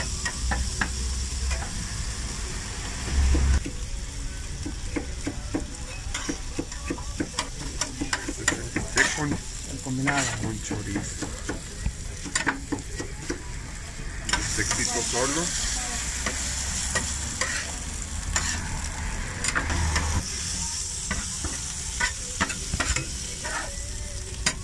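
Meat frying on a flat-top griddle, sizzling steadily, with metal utensils scraping and clicking against the griddle surface. The sizzle swells for a few seconds about halfway through.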